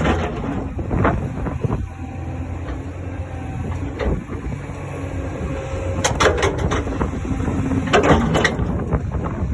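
Komatsu excavator's diesel engine running steadily, with a series of sharp knocks and clanks, the loudest clusters about six and eight seconds in.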